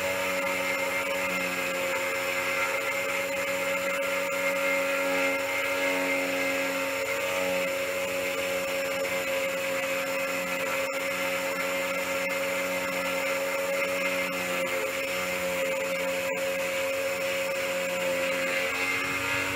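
Defu 368A key cutting machine running steadily, its electric motor spinning the rotary cutter as it mills a duplicate key blade, with a constant hum under a gritty grinding noise.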